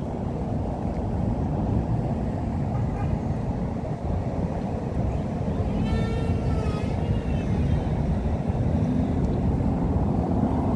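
Outdoor street ambience: a steady low rumble of traffic, with a short high-pitched voice calling out about six seconds in.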